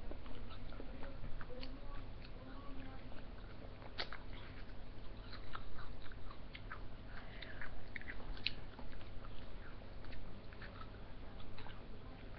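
Ice lolly being bitten and chewed close to the microphone, with irregular small clicks and crunches.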